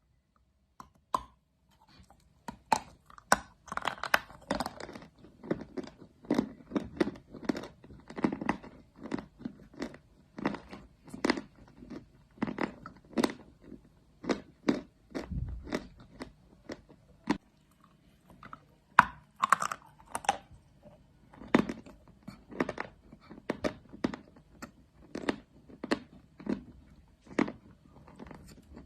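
A person biting and chewing chalk: a string of sharp crunches at an uneven pace, with a short pause a little past the middle.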